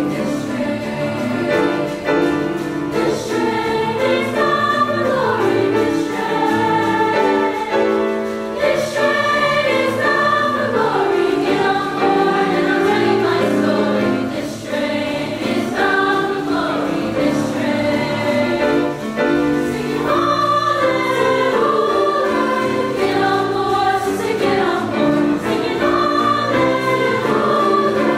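Middle-school treble choir of young girls' voices singing in several parts at once, accompanied by a grand piano.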